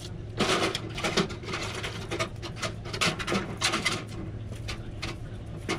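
Crinkling of a plastic bag and the rustle and scrape of a thin copper capillary tube being uncoiled and pulled straight by hand: a run of irregular crackles and scratches.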